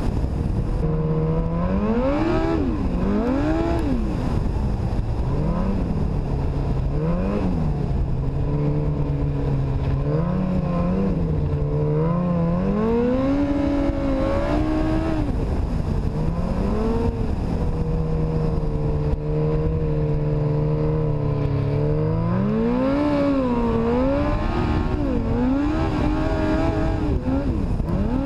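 Yamaha Apex snowmobile's four-stroke four-cylinder engine running under way, its pitch rising and falling again and again with the throttle, then holding steady for several seconds in the middle.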